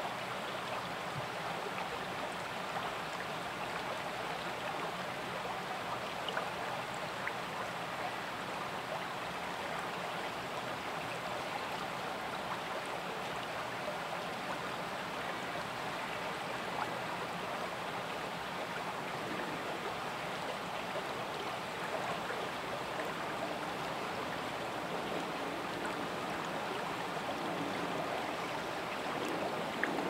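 Shallow stream flowing over rocks: a steady rush of running water.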